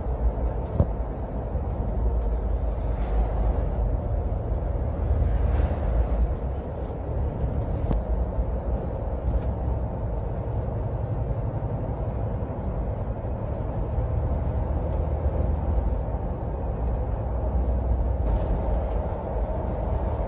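Cabin noise inside a moving bus: a steady engine drone and road rumble, with a few light rattles now and then.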